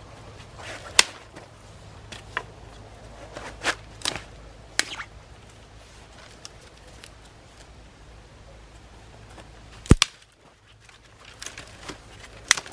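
A series of sharp, irregular cracks and knocks, about seven clear ones, the loudest about ten seconds in, over a low steady rumble that fades out right after it.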